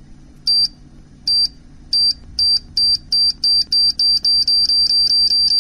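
Time bomb's electronic timer beeping: short, high single beeps that speed up from slightly under one a second to a rapid, almost continuous beeping near the end, the countdown signal of a bomb about to go off.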